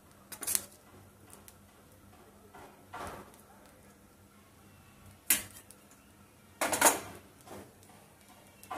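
Metal spoon clinking and scraping against a steel pan while potato filling is scooped out: a few sharp clinks with quieter scrapes between, the loudest cluster about seven seconds in.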